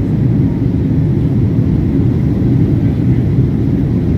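Boeing 767 airliner on approach, a steady low rumble of engine and airflow noise.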